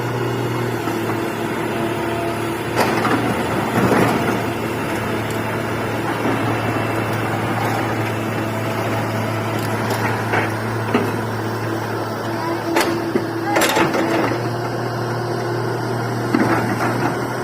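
Komatsu excavator's diesel engine running steadily, with a sharp knock now and then, about six in all.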